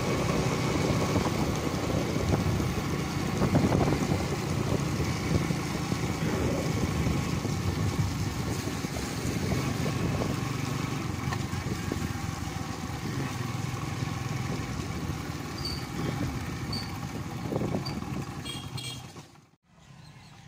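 A vehicle travelling along a wet road: an engine running steadily under a constant rush of wind and road noise, cutting off suddenly near the end.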